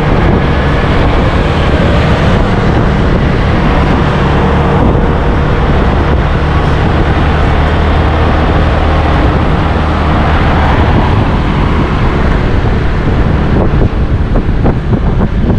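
Loud wind noise on the microphone with vehicle road noise, as heard while riding a motorbike; it grows choppier and gustier near the end.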